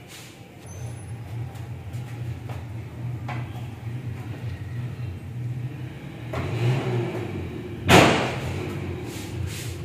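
A steady low rumble, with a few faint knocks, then one sharp, loud bang about eight seconds in.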